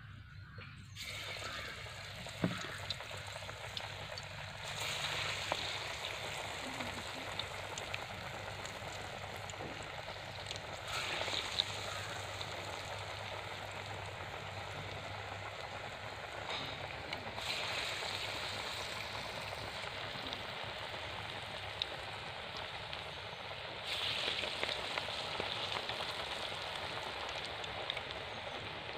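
Banana-flower vadas deep-frying in hot oil in an aluminium kadai: a steady sizzle that swells each time another patty is dropped in, about four times.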